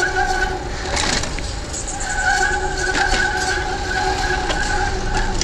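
Wind rushing over the microphone during a bicycle ride through city traffic, with a steady whine. The whine cuts out about half a second in and returns at about two seconds.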